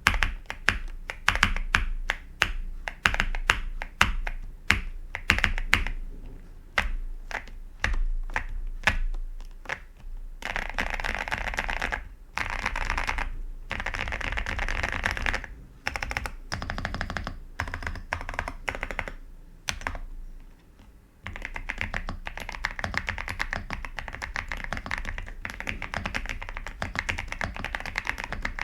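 Typing on a Xinmeng M87 (Xera87) gasket-mounted TKL mechanical keyboard fitted with Gazzew Boba U4T tactile switches. For about the first ten seconds keys are pressed one at a time, then come runs of fast typing, a brief pause about twenty seconds in, and steady fast typing to the end.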